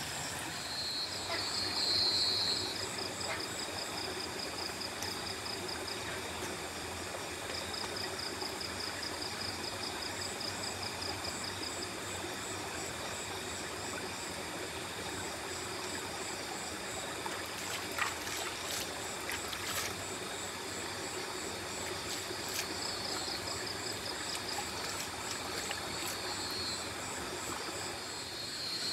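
River water running steadily over rocks, with night insects trilling in fast, evenly pulsed high-pitched series. A couple of sharp clicks a little past halfway.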